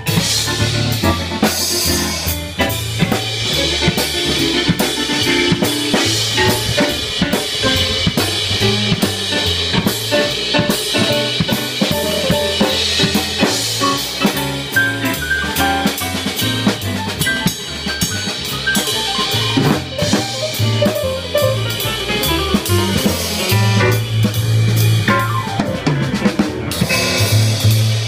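Live jazz band playing, the drum kit prominent with quick snare and bass drum hits over changing bass notes.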